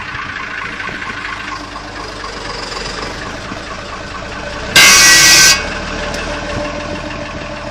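Old BMC dump truck's diesel engine idling steadily. About two-thirds of the way in, compressed air vents from the air-brake valve under the chassis in one loud, sharp, buzzy hiss lasting under a second and cutting off abruptly. This is the 'dızzzt' sound these BMC trucks are known for.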